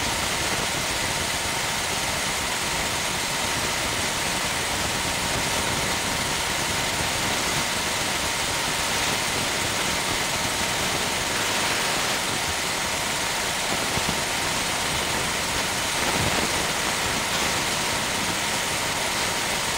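Steady mechanical running noise: an even hiss with a constant high-pitched hum, unchanging throughout, with no revving.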